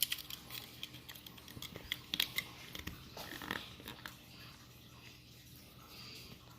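Small plastic toy parts clicking and tapping as they are handled and pressed into place, with a cluster of sharp clicks in the first few seconds, then quieter handling.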